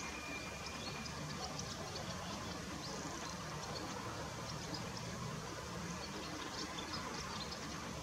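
Outdoor ambience: a steady low hum with many short, faint, high-pitched chirps from birds scattered throughout.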